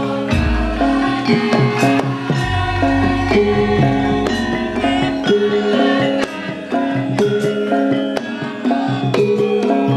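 Javanese gamelan-style ensemble playing: a metallophone melody stepping between notes over frequent hand-drum strokes, with deep low booms twice in the first half.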